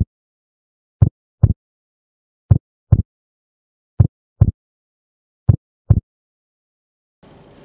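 Heartbeat sound effect: low double thumps, lub-dub, repeating about every one and a half seconds, with dead silence between.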